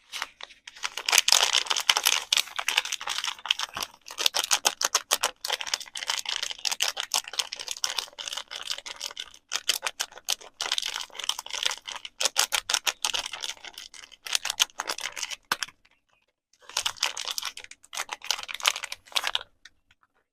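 Rapid, dense tapping on soap packaging, a flurry of quick clicks that stops briefly about sixteen seconds in, then resumes and stops again shortly before the end.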